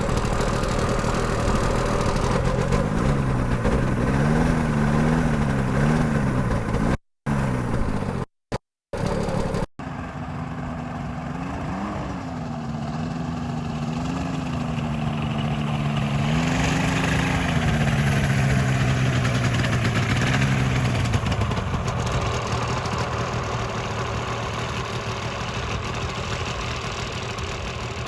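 Paramotor engine running as the hand throttle is worked, its pitch rising and falling several times between a lower running speed and brief revs. The sound cuts out briefly a few times partway through.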